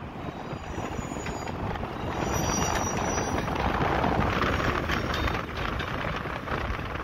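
Passenger train running along the line: a steady rumble of wheels on rail, with a faint high wheel squeal about two to three seconds in.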